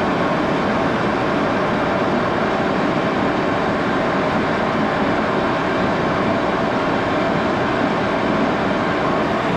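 1941 Axelson 14x30 gearhead engine lathe running steadily under power, its spindle and chuck turning a long bar, with a faint steady gear whine.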